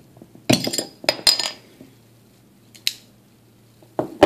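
Metal bottle opener prying the crown cap off a glass Jarritos soda bottle: a cluster of sharp metallic clicks and clinks as the cap comes loose, a small click a little later, and a louder knock near the end.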